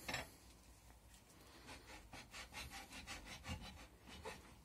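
Faint, quick back-and-forth rubbing strokes, about five a second, of a small piece held by hand against a turned wooden workpiece on a wood lathe, after a brief scrape right at the start.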